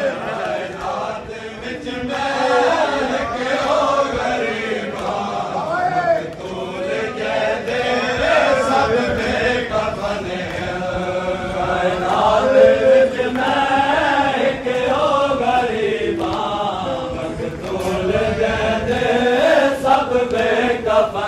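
Men's voices chanting a noha, the Muharram lament, in a slow wavering melody, with scattered slaps of hands on chests (matam) from the mourners.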